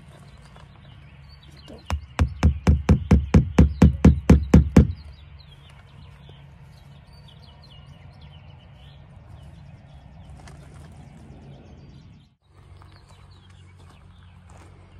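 A quick run of about a dozen sharp knocks, roughly four a second and growing louder, over a steady low hum, with birds chirping briefly after.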